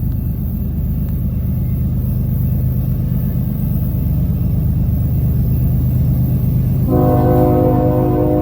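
Diesel freight locomotive running with a steady low engine rumble; about seven seconds in, its multi-note air horn starts sounding a held chord.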